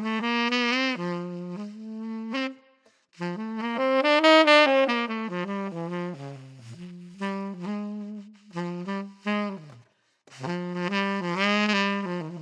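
A 1959 Selmer Mark VI tenor saxophone with a SYOS signature 3D-printed mouthpiece plays a jazz solo transcription: quick runs of notes rising and falling, broken by two short breaths.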